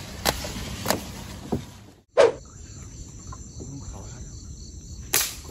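Rustling and clicks of palm fronds being pushed aside, then a steady high chirring of night insects such as crickets. A single sharp snap of a slingshot shot comes near the end.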